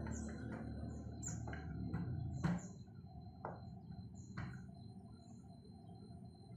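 Small birds chirping in short, high calls, repeated every second or so, with a few sharp clicks, the loudest about two and a half seconds in.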